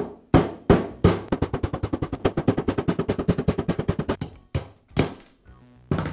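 Hammer striking a pin punch to drive out the roll pins holding a nail gun's trigger valve. A few separate metallic taps come first, then a fast, even run of about ten taps a second for some three seconds, then a few more taps.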